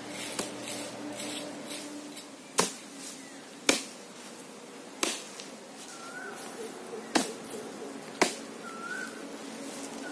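A handful of sharp knocks, one every second or so at an uneven pace, with a few short chirps in the second half.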